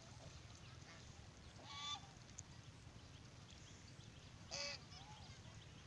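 Domestic goose honking twice, about three seconds apart, each call short with a rising-then-falling pitch, over a faint steady low rumble.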